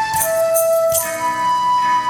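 Flute playing a slow melody of long held notes over a live band, stepping down to a lower note just after the start and up to a higher one about a second in, with light percussion strokes.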